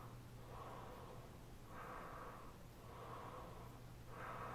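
Heavy breathing through an N95 mask close to the microphone: even breaths in and out, each about a second long, four in a row. A steady low hum runs underneath.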